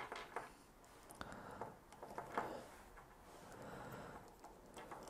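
Faint, sparse clicks and taps of small plastic action-figure parts being handled as a face plate is swapped on the figure's head.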